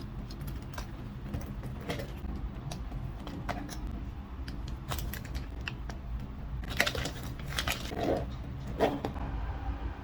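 Scattered light clicks and knocks, several close together about seven to nine seconds in, over a steady low hum.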